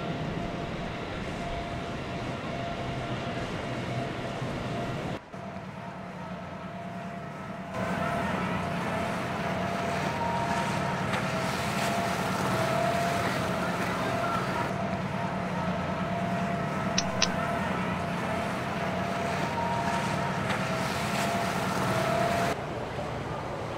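Motorboat engines running steadily with a constant whine, the sound shifting abruptly a few times. Two quick ticks come about two-thirds of the way through.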